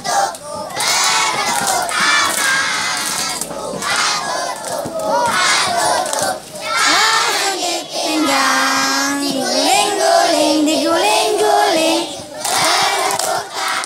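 A large group of schoolchildren singing a song together loudly, half-shouted, with some hand clapping. The song is a children's earthquake-safety song about running to the open field when an earthquake comes.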